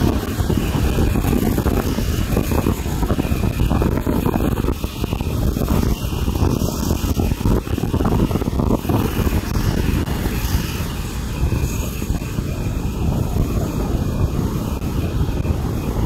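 Horizontal trolley band sawmill running steadily, its band blade sawing lengthwise through a log.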